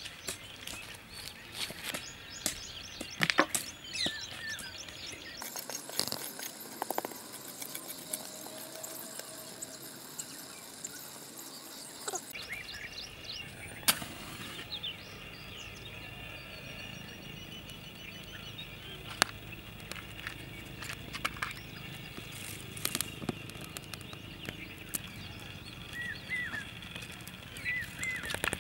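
Outdoor ambience with birds chirping, and scattered sharp clicks and snaps from dry sticks and twigs being handled and laid in a fire pit.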